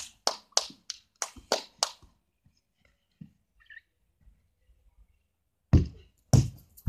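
A football kicked hard, two heavy thuds about half a second apart near the end as the ball is struck and then hits something. Earlier there is a quick run of about six sharp taps.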